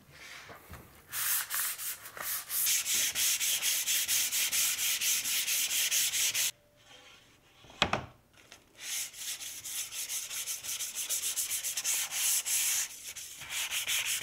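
Sandpaper rubbed by hand quickly back and forth along the grain of a maple-veneer skateboard deck, an even rasping rhythm. The strokes break off for a moment near the middle, where there is a single knock, then start again.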